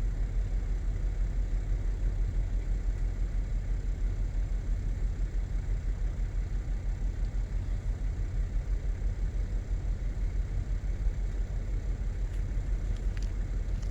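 Steady low rumble of an idling engine, even and unbroken throughout.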